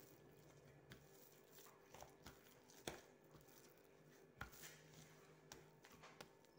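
Faint, irregular soft pats and thuds of hands kneading a large mound of dough on a countertop, with the two firmest thumps about three seconds in and about four and a half seconds in.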